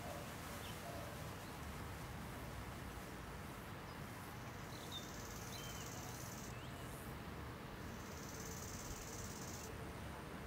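Faint outdoor summer ambience: insects trilling in a high, steady band that comes in twice for a few seconds each, with a few faint bird chirps about halfway through.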